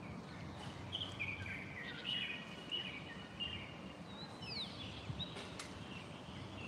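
Small birds chirping in short runs of notes over steady outdoor background noise, with a quick falling whistle about two-thirds of the way through.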